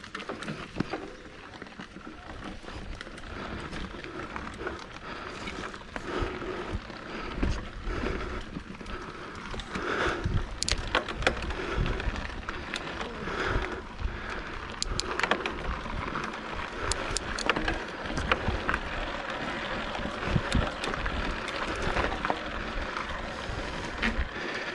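Mountain bike ride heard from a helmet or bar camera: tyres rolling over the trail and the bike rattling, with many scattered clicks and knocks.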